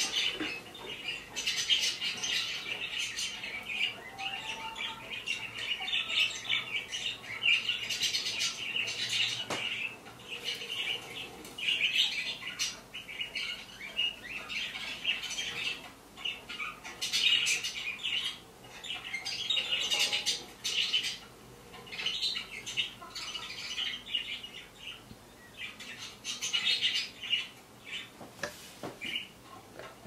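Small parrots chattering and squawking in a dense, high twitter, in spells broken by short lulls, played from a computer.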